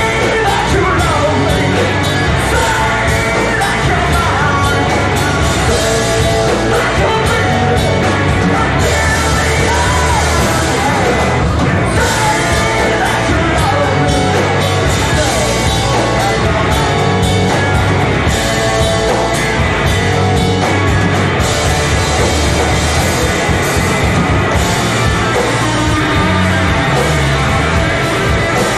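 A rock band playing loudly and without a break, with a singer's vocals over the band.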